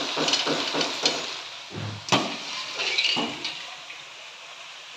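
Soaked chickpeas and a steel cooking pan being handled, giving a quick run of small knocks and rattles, then a louder knock about two seconds in and a few more shortly after.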